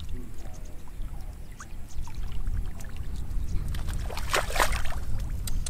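Muddy water sloshing and splashing as hands and feet move through a shallow flooded rice field, loudest in a burst of splashes about four seconds in. A steady low rumble runs underneath.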